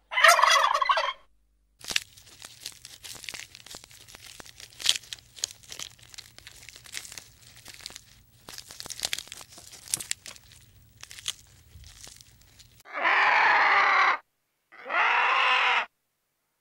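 A turkey gobbles once, loud and warbling. Then comes a long stretch of faint crunching and crackling of leaves and twigs as giraffes browse on leafy branches. Near the end a vulture gives two harsh, drawn-out calls about a second long each.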